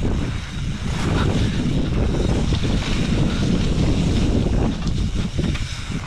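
Strong wind buffeting the microphone: a loud, steady, rough rumble with fluttering gusts.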